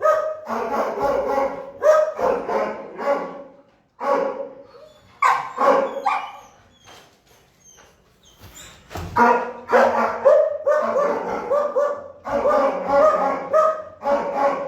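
Shelter dogs barking in their kennels: rapid, overlapping volleys of barks, with a brief lull about seven to eight seconds in before the barking starts up again.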